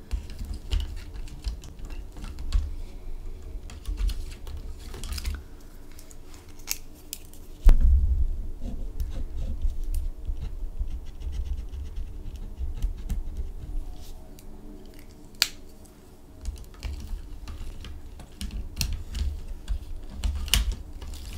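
Gel pen scratching short strokes on paper close to the microphone as a colour swatch is drawn, with a low rumble of hand and paper rubbing on the desk and scattered small clicks. A sharp knock about a third of the way through is the loudest sound.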